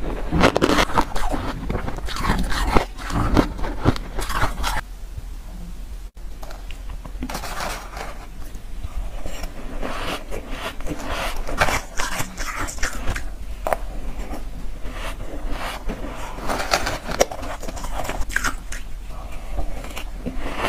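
Close-miked chewing of soft, powdery frozen ice: a run of quick, crisp crunches, bite after bite. There is a brief break about six seconds in, where one bite session gives way to another.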